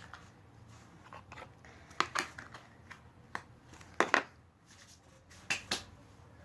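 Hands handling slime and its plastic containers: several sharp clicks and crackling squishes, spaced irregularly over a few seconds.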